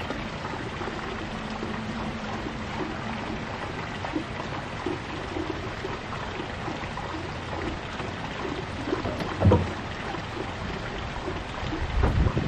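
Steady outdoor background hiss, with a short low thump about nine and a half seconds in and a low rumble near the end.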